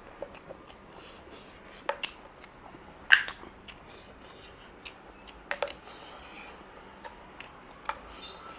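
Close-up eating sounds from a meal of mutton curry and rice: chewing, with scattered sharp clicks and crunches, the loudest about three seconds in.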